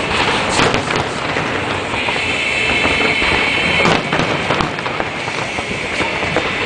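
Aerial fireworks shells bursting and crackling in quick succession as a dense, continuous barrage. A high, steady tone sounds over the crackle for about two seconds in the middle.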